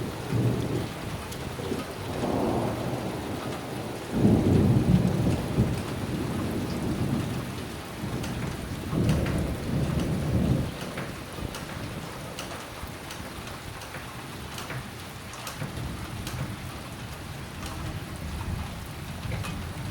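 Steady heavy rain with scattered drip ticks, and rolls of thunder rumbling up three times, about two, four and nine seconds in.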